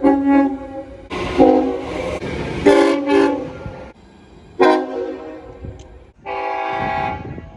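Locomotive horn sounding four blasts: one already under way that ends about a second in, a long blast with a few sharp stabs near its end, a short blast, then a final steady long blast. This long-long-short-long pattern is the standard signal for a grade crossing. Train noise rumbles between the blasts.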